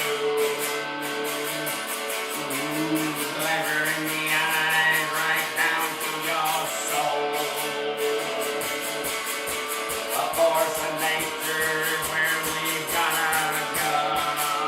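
Instrumental passage of a song: guitar lines with gliding notes over held chords and a steady, evenly ticking beat.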